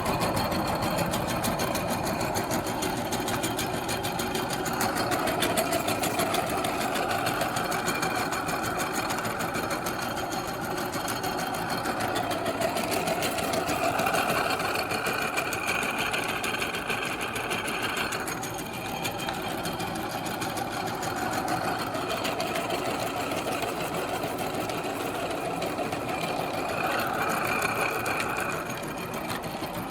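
Meat grinder running steadily with a fast, even mechanical rattle, its tone shifting a little as it works.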